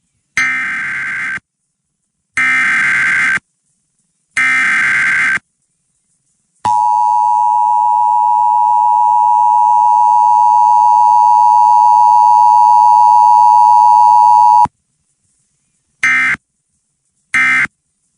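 Emergency Alert System broadcast tones: three one-second bursts of SAME digital header data a second apart, then the EAS two-tone attention signal, a steady 853 + 960 Hz dual tone held for about eight seconds that grows slowly louder. Two short data bursts follow near the end, the start of the end-of-message code.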